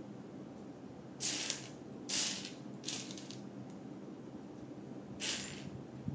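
Hands handling small plastic LEGO pieces: four short bursts of clattering and rustling, the second one the loudest, the last near the end.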